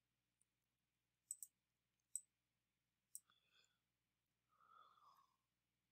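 Faint computer mouse clicks, a few single clicks spaced about a second apart, against near silence.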